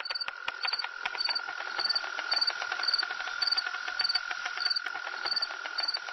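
Insects chirping: a short high chirp repeats about twice a second over a steady high drone and dense fine ticking, cutting in suddenly out of silence.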